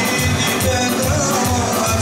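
Loud dance music with a steady bass beat, about three beats a second.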